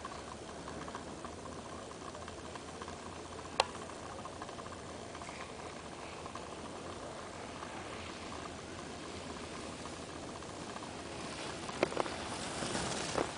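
Steady wind noise on the microphone, with a sharp click about three and a half seconds in. Near the end a louder hiss and a few clicks as ski edges scrape over the packed snow of a glacier piste close by.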